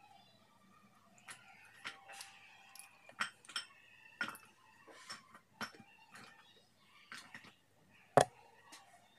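Pieces of slate stone clinking against each other and a glass bowl as they are handled and dropped: scattered sharp clicks, with the loudest knock about eight seconds in.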